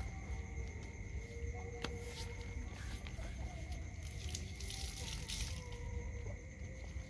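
Dogs whining softly in thin, drawn-out whimpers that step slightly in pitch, over a steady high-pitched drone and a low rumble, with a few faint clicks.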